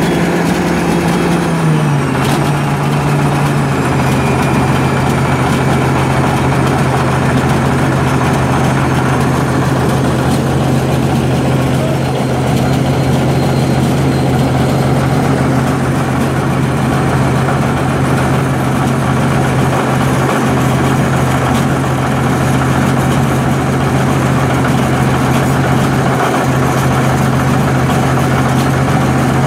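Caterpillar D9 bulldozer's diesel engine running; its speed drops about two seconds in, then it idles steadily.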